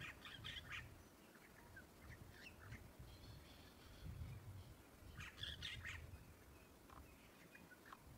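Faint birds calling: two short flurries of quick high chirps, one at the start and one about five seconds in, with a few single calls between, over a low rumble.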